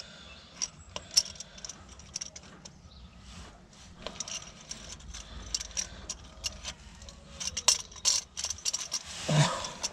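Scattered metallic clicks and clinks of a socket extension and cup-type oil filter wrench being worked against the oil filter, the wrench struggling to grip and the filter not loosening. The clicks come thickest near the end.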